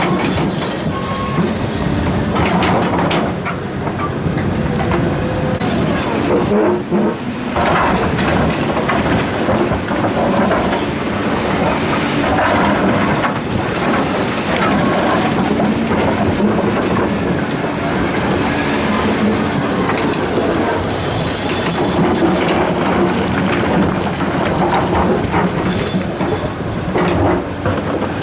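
Komatsu excavator at work placing large rocks: diesel engine running steadily under load, with irregular knocks and grinding as boulders scrape against each other and against the steel bucket.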